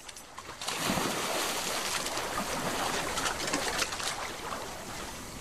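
Rushing, bubbling water noise with small crackles, starting about a second in and then holding steady, as divers enter the water.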